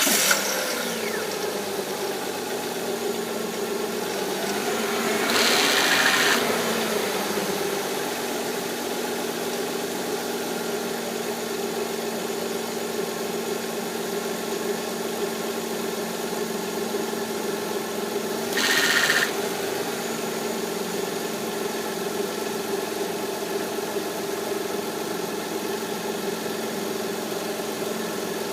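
2006 Kia Optima's V6 engine idling steadily just after starting. It swells louder with a noisy, wavering sound about five to six seconds in, and a short hissy burst comes about nineteen seconds in.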